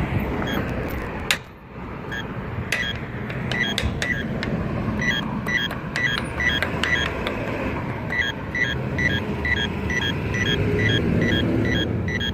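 Accessible pedestrian signal push-button at a crosswalk sounding its locator tone: a short, high beep repeating evenly about twice a second, over steady passing traffic. A sharp click about a second in.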